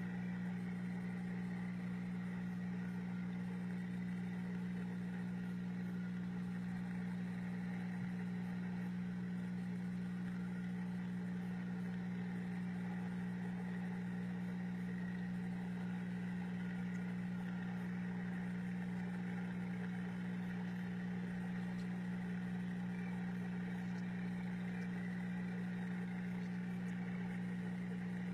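Fish tank pump humming steadily as a low, unchanging electric drone.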